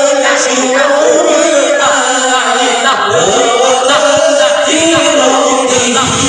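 Large congregation chanting together in unison, Islamic devotional chanting carried by many voices in a slow, wavering melodic line with no pauses.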